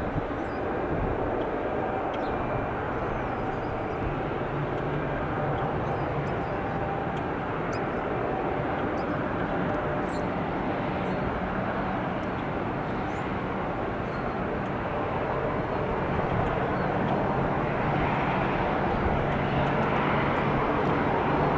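Airbus A321 airliner's jet engines heard outdoors: a steady jet noise that grows somewhat louder over the last few seconds.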